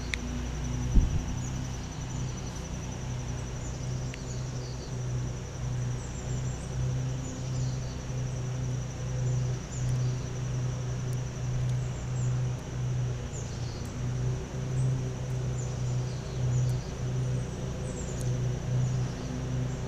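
Lawn mower engine running steadily, its hum wavering slightly in strength, with a high insect trill and bird chirps over it. A single sharp knock about a second in.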